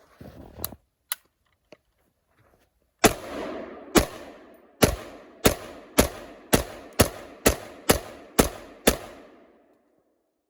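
SKS semi-automatic rifle (7.62×39) firing a string of about eleven shots, at first about one a second and then faster, roughly two a second, each shot followed by a rolling echo. A few small handling clicks come first.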